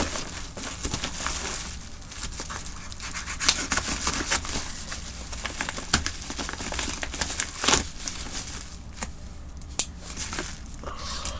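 Packaging crinkling and tearing as a parcel is opened slowly by hand, with irregular sharp crackles and a few louder snaps in the second half.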